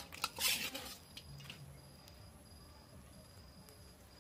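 Cooked lobsters being set down onto a bowl of fried noodles: a few light clicks and a brief rustle about half a second in, then a few faint ticks.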